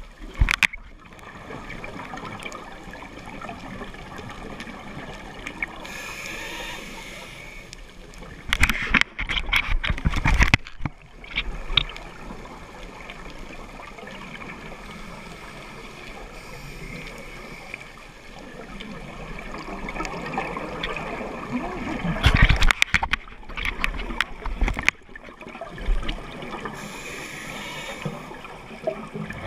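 Scuba diver breathing through a regulator underwater: two loud stretches of bubbly, crackling exhaled-air bursts, about a third of the way in and again around three-quarters through, over a steady underwater hiss.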